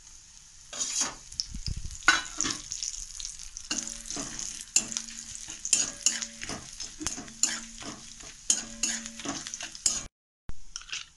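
Whole spices, bay leaves, ginger and dried red chillies sizzling in hot oil in a metal kadai, while a metal spatula stirs and scrapes against the pan with repeated knocks. In the middle stretch many strokes leave a short low ringing from the pan.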